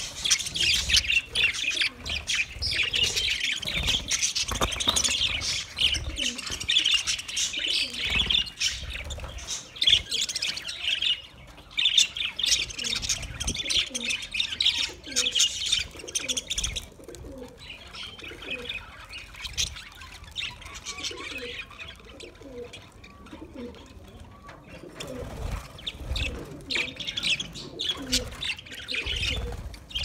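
A flock of budgerigars chattering and chirping together in a continuous warble, busier in the first half, thinning out for several seconds past the middle and picking up again near the end.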